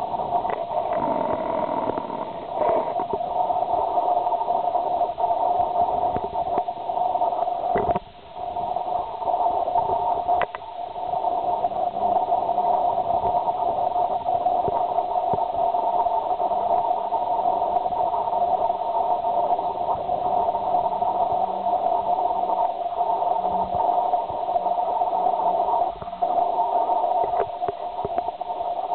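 A steady droning hum with hiss, dropping away briefly about eight seconds in and again around ten seconds, with a few faint clicks.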